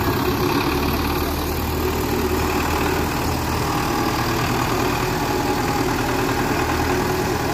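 Belarus tractor's diesel engine running steadily at low revs as it pulls a trolley loaded with mud.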